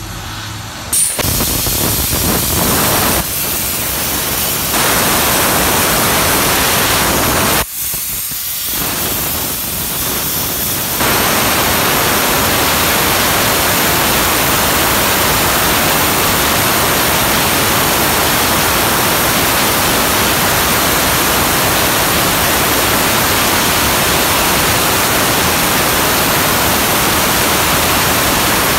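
Electric arc welding: a loud, steady hiss of the arc. It starts about a second in, breaks off briefly near eight seconds, then runs on louder from about eleven seconds.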